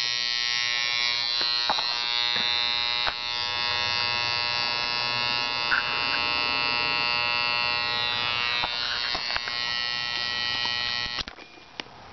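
Large transformer, its secondary a single turn of thick copper wire, buzzing steadily while dead-shorted and pushing over 600 amps through the secondary. The buzz cuts off suddenly about eleven seconds in.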